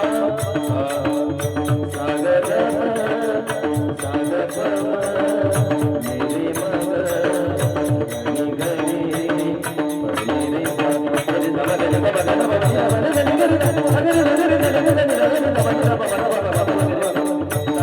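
Marathi kirtan music: hand drums and a fast, even beat of small cymbals over steady held tones, with a wavering melody line.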